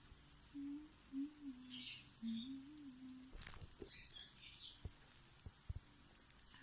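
Baby lovebird chick giving short raspy begging calls twice while being spoon-fed, over a person softly humming a wavering tune, with a few faint clicks near the end.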